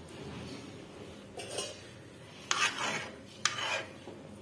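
A metal spoon scraping and clinking against a metal cooking pot while cooked rice is stirred: three short scrapes about a second apart.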